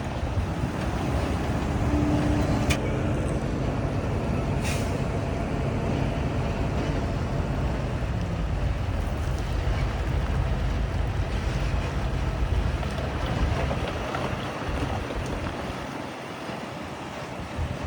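Diesel engines of heavy earthmoving machinery running with a deep, steady rumble, with two sharp clanks about three and five seconds in. The rumble eases off a little near the end.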